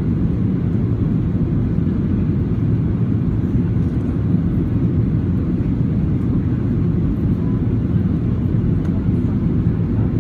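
Steady low cabin rumble of a Boeing 737-800 in descent, the CFM56 turbofans and airflow heard from a window seat inside the passenger cabin.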